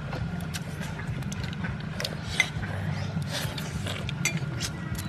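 Eating with a metal spoon from a dish: scattered small clicks and knocks, one sharper about halfway through, over a steady low hum.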